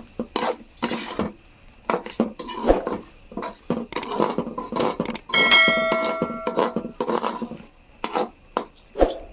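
Metal spoon scraping and knocking in a kadai as a finished chicken fry is stirred, with one ringing metallic clang about five seconds in that rings on for about a second and a half.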